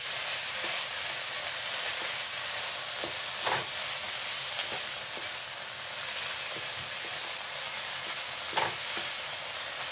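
Salmon chunks and peppers sizzling steadily in a hot nonstick frying pan as they are stirred with a wooden spoon, with a couple of sharper scrapes of the spoon against the pan, about a third of the way in and near the end.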